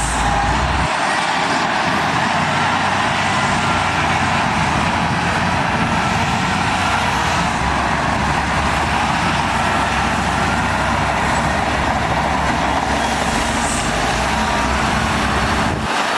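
Heavy diesel earthmoving machinery running steadily under load.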